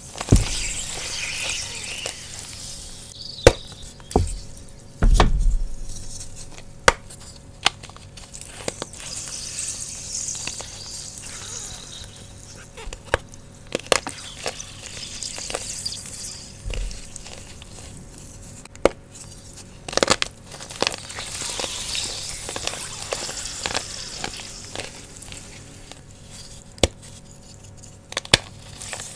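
Fresh blocks of gym chalk crushed and crumbled by hand in water: sharp crunches and snaps as pieces break off, over a hissing sizzle from the wet chalk. A few dull thumps as the blocks are handled, the heaviest about five seconds in.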